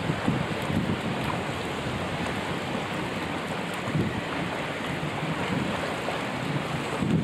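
Wind buffeting the microphone in gusts over a steady rush of water and boat noise, as heard from a boat on open water.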